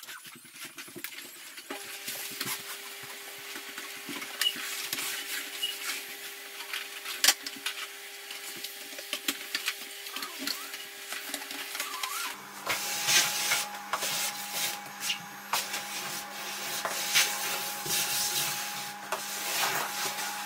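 Canister vacuum cleaner running while its nozzle and wand are worked over a wooden floor, with frequent knocks and rubbing from the hose and nozzle. The steady hum drops in pitch and turns brighter about twelve seconds in.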